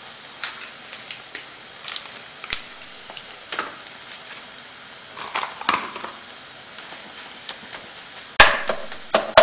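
Fried rice with leftover seasoned chicken sizzling faintly in a frying pan on a portable gas stove, with scattered light clicks. About eight seconds in, a wooden spatula starts stirring and scraping in the pan with loud, quick knocks.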